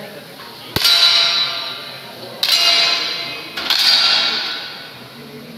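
Three air pistol shots, each a sharp crack followed by a metallic ring that dies away over about a second. The first comes about a second in, and the next two follow about a second and a half and then a second apart.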